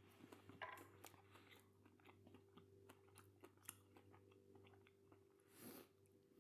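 Faint chewing of a milk chocolate bar with crunchy orange pieces: scattered small crunches and mouth clicks over a steady low hum.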